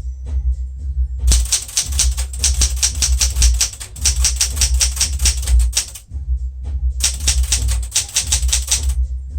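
Fast typing on a 1975 Smith-Corona Galaxie Twelve manual typewriter: a dense run of keystrokes from about a second in, a pause, then a second run near the end. Background music with a steady bass beat plays underneath.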